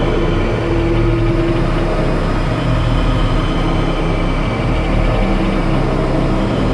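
Loud experimental drone and noise music: a steady low rumble under dense layers of held tones, with a clearer mid tone standing out briefly about a second in.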